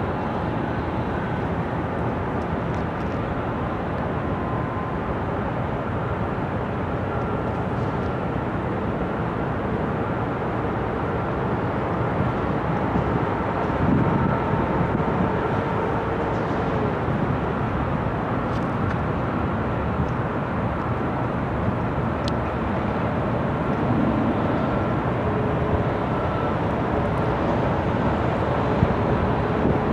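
KLW NZE15B genset diesel locomotive running steadily as it moves through the rail yard.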